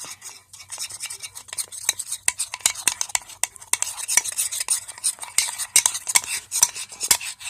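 Spoon stirring a thick homemade slime mixture of shampoo, salt and just-added peroxide in a bowl: steady, rapid clicks and wet scraping.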